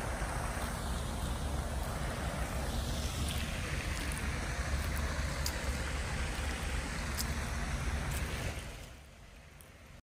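Wind buffeting a phone's microphone: a steady rush with a deep rumble, fading out near the end.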